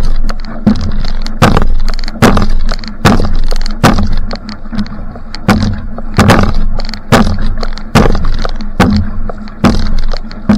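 Outrigger canoe paddle strokes at sprint pace: the blade strikes and splashes into the water about every 0.8 seconds, a steady rhythm of sharp splashing hits.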